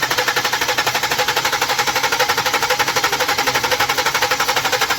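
Car engine running with a loud, rapid, even clatter of about fourteen ticks a second, heard close up. It is misfiring on cylinder #1, which the mechanic puts down to a bad fuel injector.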